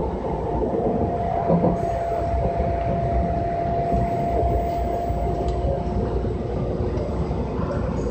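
Interior running noise of a Kintetsu Minami-Osaka Line local electric train slowing for a station stop: a steady low rumble of wheels on rail, with a thin steady whine that starts about a second in and fades near the end.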